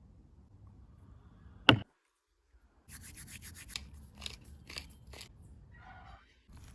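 A single sharp knock, a moment of dead silence, then a run of rubbing, scraping strokes, about two a second, as if something is rubbed or scraped by hand during food prep.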